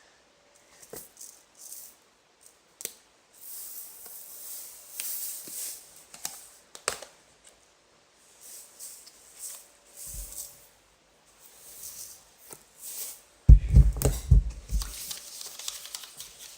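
Salt being shaken from a container into a cup of slime mixture: on-and-off rattling hiss with scattered clicks, and a burst of heavy knocking and bumping near the end.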